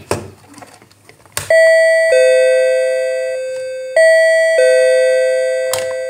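Battery-powered DC doorbell rigged as a water-tank overflow alarm, chiming a two-note ding-dong, high note then low, twice, each note ringing on and slowly fading. A sharp click comes just before the first chime.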